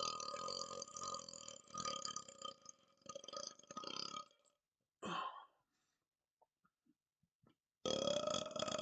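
A man belching after chugging carbonated soda. A long, drawn-out burp breaks into choppy sputters and stops about four seconds in. A short burp follows about a second later, and after a quiet gap another long burp starts near the end.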